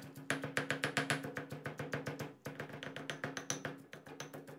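Granite pestle pounding roasted dried chilies, shallots and garlic in a granite mortar: a fast, even run of knocks with the stone ringing under them, pausing briefly about halfway through. The mix is being ground down into a smooth chili paste.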